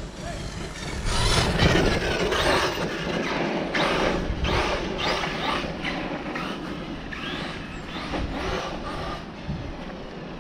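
Arrma Kraton V4 RC monster truck driven in short bursts of throttle, its brushless electric motor whining up and down in pitch with tyre noise, from about a second in until near the end.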